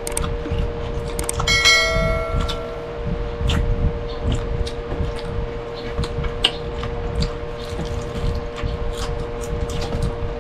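Close-up eating sounds: chewing and small clicks of utensils on plates. About a second and a half in, one piece of tableware is struck and rings clearly for about a second and a half. A steady hum runs underneath.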